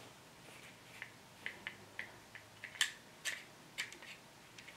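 Dull-bladed rotary cutter working through cotton fabric on a cutting mat: a run of short, crisp, irregular crunches and ticks, the loudest nearly three seconds in.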